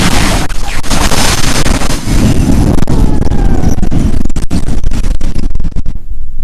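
Strong wind gusting hard and buffeting the microphone: a loud, low rumble under a rushing hiss. The hiss drops away near the end, leaving the rumble.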